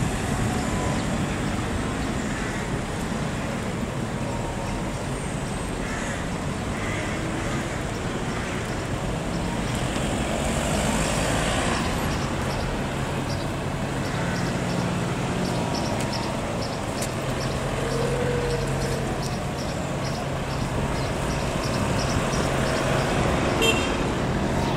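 Steady road-vehicle noise, engine and tyre noise of a car on the road, with a low engine hum settling in about halfway and a faint regular ticking in the second half.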